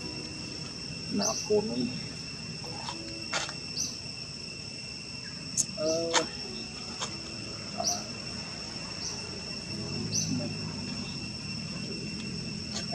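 Steady high-pitched insect drone, held on two even tones, with a short chirp repeating every second or two.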